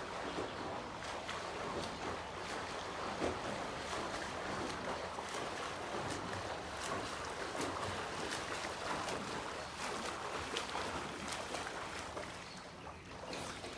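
Sea water sloshing and splashing close to the microphone during swimming, with many small splashes and drips scattered through it.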